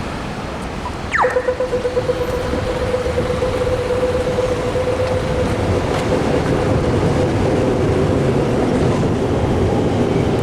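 Electric suburban train passing, a steady rumbling noise of wheels on rails. About a second in, a whine slides quickly down in pitch and then holds at one steady note.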